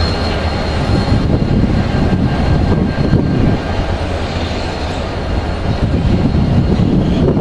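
Two Class 35-600 diesel-electric locomotives running light, coupled together, their diesel engines running steadily as they approach.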